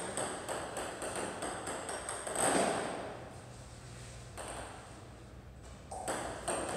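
Celluloid-type table tennis ball clicking sharply on the table and racket during serve practice: a run of quick light ticks early on and again near the end. A brief louder rush of noise comes about two and a half seconds in.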